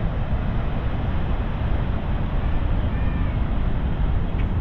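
Steady rushing noise of the Niagara River's falls and rapids, mixed with wind buffeting the microphone. A faint, short, high call sounds about three seconds in.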